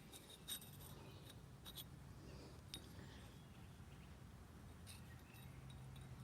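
Near silence with a few faint clicks and light clinks of metal bike parts, a sprocket ring and disc brake rotor, being handled and turned over. A faint low hum comes in near the end.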